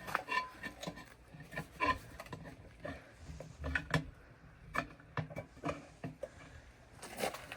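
Irregular clinks and knocks of a tire bar working a tire bead onto a wheel rim by hand, a couple of them with a short metallic ring.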